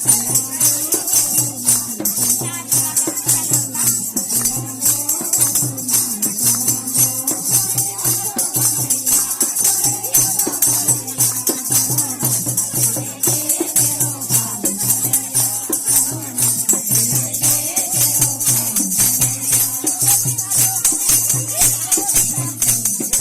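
Devotional bhajan music for Krishna: a quick, steady beat with continuous jingling hand percussion under a wavering melody line.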